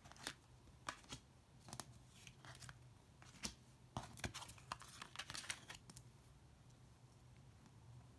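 Oracle cards slid across a wooden table, gathered up and flipped over: light scrapes, swishes and taps of card on card and card on wood for about the first six seconds, then it goes quiet.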